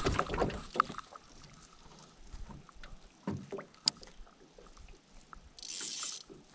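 Small knocks and taps on a fishing boat, with faint water sounds against the hull and a brief hiss about five and a half seconds in.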